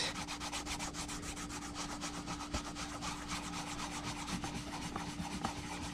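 Paint being rubbed into a leather knife sheath and its stitching: quick, steady rubbing strokes.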